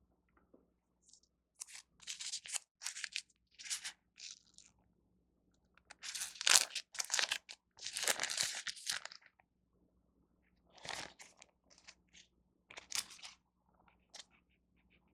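Plastic food wrapper being torn open and crinkled in three bouts of crackling, the loudest in the middle.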